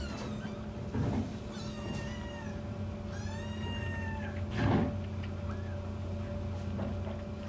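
Tiny kittens mewing: several thin, high mews, the longest about three seconds in, with a soft thump near the five-second mark.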